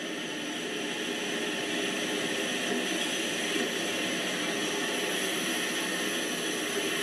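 N-gauge model of a DRG class E 44 electric locomotive running past with a freight train: a steady whir from its motor, with the wagons' wheels rolling on the track. It grows louder over the first second or so as the train comes closer, then holds steady.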